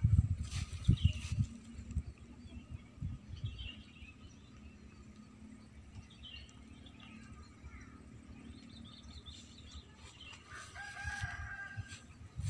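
A rooster crows once, a held call of about a second and a half near the end, with small birds chirping faintly. A few low bumps of wind or handling on the microphone come in the first second or so.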